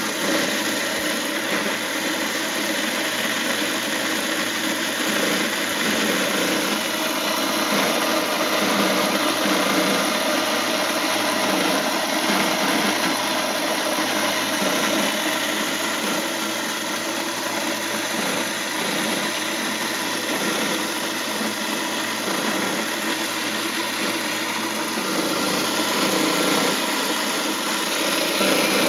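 Vevor 3000 W electric grain mill running steadily under load, grinding dried corn kernels into coarse feed.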